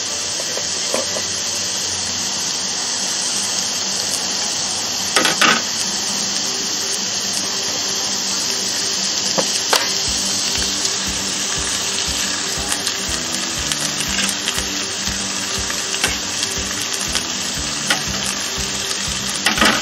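Beef steak and a red hot pepper sizzling steadily on an electric contact grill, with a few sharp clacks of tongs and grill plates.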